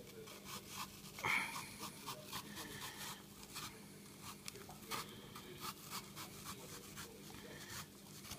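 Small kitchen knife scoring a circle into the cut top of an apple: faint crisp scratching and many small clicks as the blade works through the flesh, with one louder sound about a second in.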